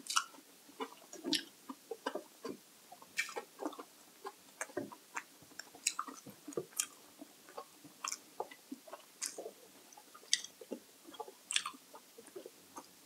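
A person chewing food, with irregular wet mouth clicks and smacks.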